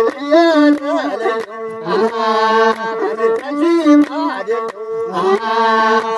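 Masenqo, the Ethiopian one-string bowed fiddle, playing a long held tone and melody under men's singing voices, with hand claps keeping the beat.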